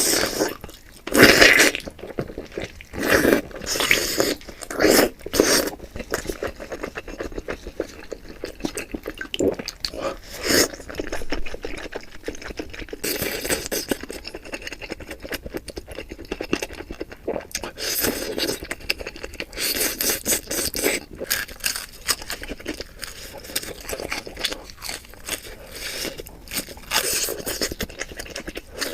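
A person eating close to the microphone: irregular bites and chewing, with occasional scrapes, in short uneven bursts that are densest in the first few seconds.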